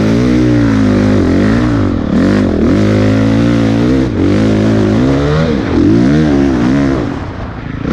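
Motocross bike engine revving up and easing off again and again under the rider's throttle, close up from a helmet camera; the throttle is shut off briefly about seven seconds in before the engine picks up again.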